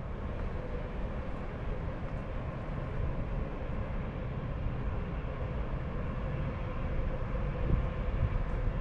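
Steady city street ambience: a low rumble of distant traffic with a faint steady hum running through it.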